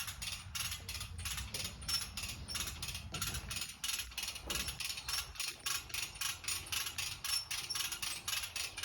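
A come-along hand winch being ratcheted, its pawl clicking in a steady rapid train of about four clicks a second as the lever is worked to draw up the chain pulling the calf.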